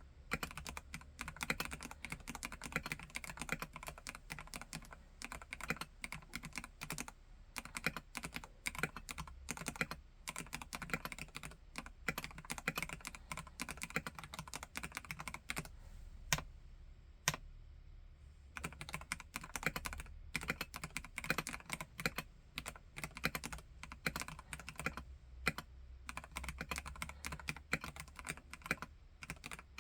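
Typing on a Vortex KBt RE:68 mechanical keyboard with Gateron G Pro Red linear switches: rapid, continuous keystrokes, with a brief lull a little past halfway that holds only a couple of single key strikes.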